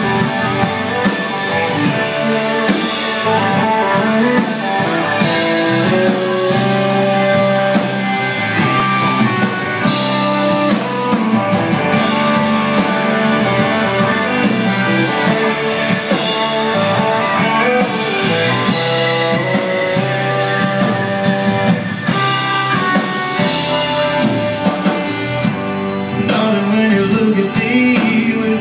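Live country band playing with electric and acoustic guitars, drum kit and a singer, recorded from the audience.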